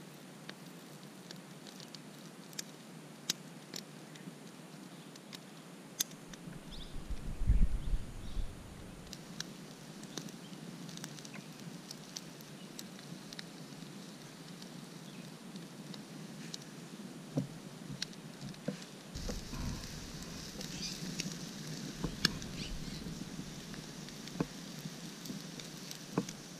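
Small wood fire crackling with sparse, sharp pops under fish grilling on a stick rack. A low rumble of wind on the microphone comes about seven seconds in, and a louder steady hiss rises about two-thirds of the way through.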